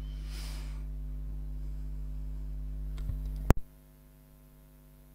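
Steady electrical mains hum with a stack of overtones, picked up in the recording. About three and a half seconds in there is one sharp click, after which the hum is much quieter.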